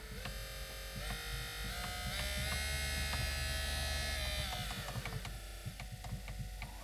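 Repaired heater blower motor of a 2010 Kia Ceed running again. Its whine steps up in pitch through the speed settings over the first couple of seconds, holds at the top, then steps back down near the end.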